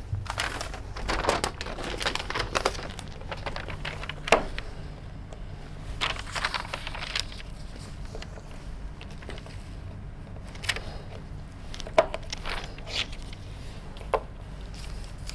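A large paper sheet being handled and stuck onto a whiteboard: rustling and crinkling in spells, with a few sharp taps or clicks against the board.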